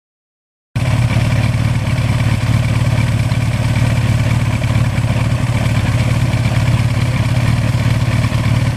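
1982 Suzuki GS1100E motorcycle's air-cooled inline-four engine running at a steady pitch, with no revving. It starts abruptly a little under a second in.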